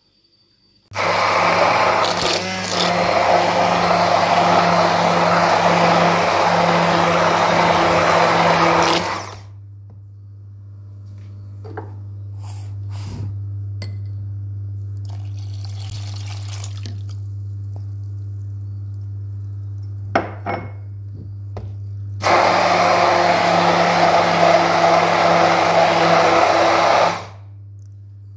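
Braun hand blender running in a wet mash of boiled lemons, vinegar and salt, in two runs: about eight seconds, then about five seconds near the end. In between it is switched off, leaving a steady low hum and a few knocks.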